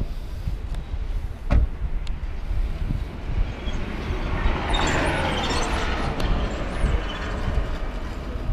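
A vehicle passing by, a rushing noise that builds to its loudest about five seconds in and then fades, with a few faint high squeaks near its peak, over a steady low rumble. A single sharp knock about a second and a half in.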